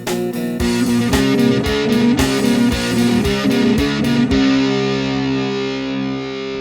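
Background music: guitar-led rock with a steady drum beat, ending about four seconds in on a held chord that rings out.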